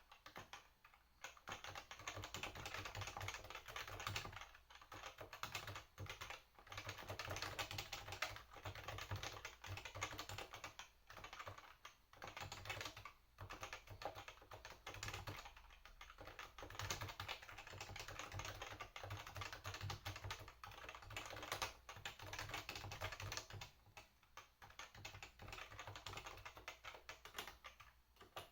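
Topre REALFORCE 87UB tenkeyless keyboard with Topre electrostatic capacitive switches, typed on quickly and continuously: a dense run of soft keystrokes broken by a few short pauses.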